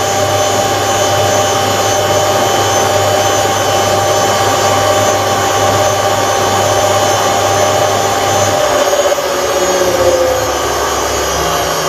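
Hotpoint WMA 9 washing machine running on its replacement motor, a steady motor whine with a low hum. A little after eight seconds the hum drops out and the whine falls in pitch as the motor slows.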